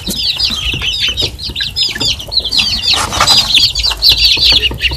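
A brood of young chicks peeping constantly, many short high falling peeps overlapping, with a brief rustle about three seconds in.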